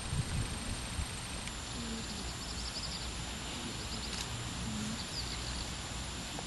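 Outdoor ambience: steady background noise with a few short bursts of faint, quick bird chirps, and faint distant voices now and then.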